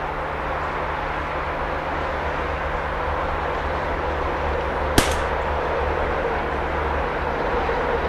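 A single shotgun shot about five seconds in, over a steady low background rumble.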